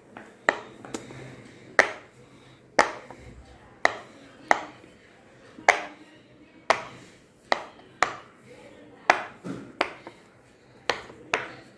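Silicone pop-it fidget toy bubbles being pressed in one after another, each giving a sharp pop, about fourteen pops at an uneven pace of roughly one every half second to a second.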